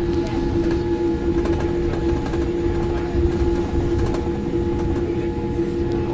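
Steady cabin hum inside a Boeing 787-8 on the ground after landing: a low rumble under a constant droning tone, with scattered faint clicks.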